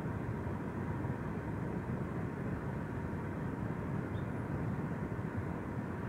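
Steady low background rumble with no distinct sounds standing out.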